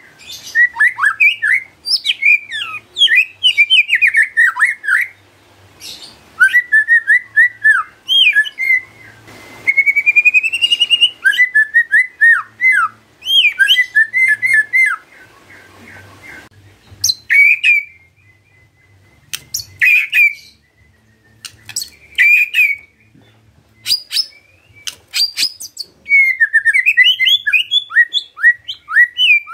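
White-rumped shama (murai batu) in full, vigorous song: rapid runs of varied gliding whistles and trills. Through the middle the song thins to short, sharp notes with pauses between them, then breaks into a dense run again near the end.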